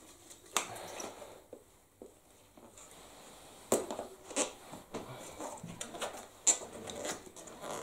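A bicycle tire being worked back onto its rim with tire levers: the rubber bead rubbing and scraping on the rim, with several sharp clicks of the levers, the loudest about six and a half seconds in.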